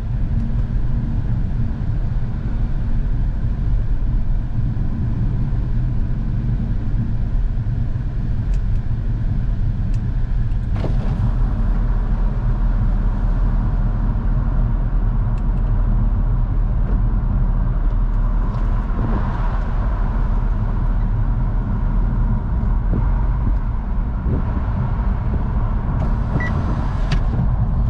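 Steady low rumble of engine and road noise inside a moving Audi A5 Cabriolet with a 2.0 TFSI turbocharged petrol engine, while its power soft top folds back. A few faint clicks come partway through and near the end.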